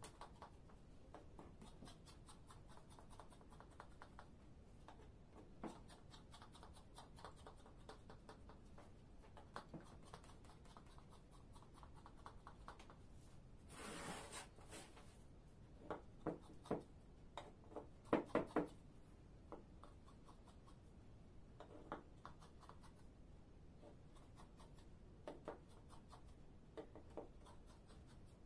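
A knife drawing through raw rolled baklava pastry in a metal baking tray: faint scratching strokes. A cluster of sharp clicks and knocks comes a little past halfway.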